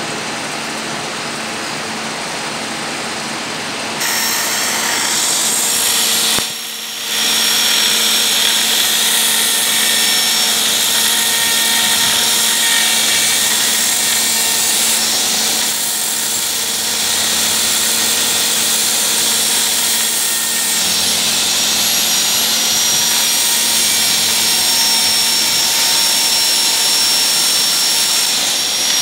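Handheld electric die grinder running with a steady high-pitched whine and hiss as it polishes the steel hemispherical cavities of an injection-mould die by hand, the final finishing stage. It starts about four seconds in, over a lower steady workshop hum, and drops out briefly a few seconds later.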